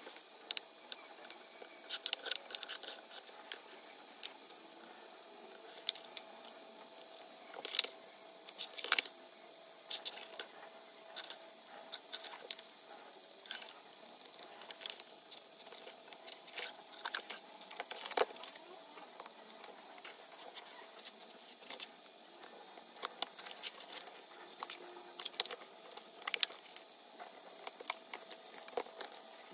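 Irregular light clicks, taps and short scratches of hands working on a thin cardboard box: a pen tracing round a small circuit board and the board and card being shifted about, over a faint steady hum.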